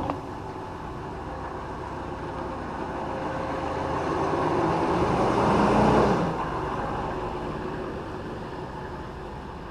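A road vehicle passing by: its engine and tyre noise grows louder, peaks about five to six seconds in, then fades.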